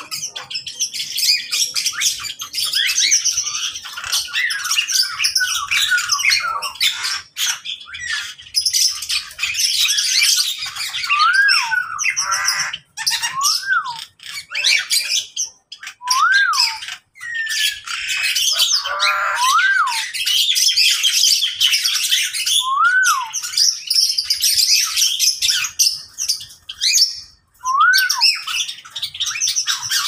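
A mixed flock of caged aviary birds, parakeets and lovebirds among them, calling together in a dense chatter of chirps and squawks. A short whistle that rises and falls repeats every few seconds through the second half.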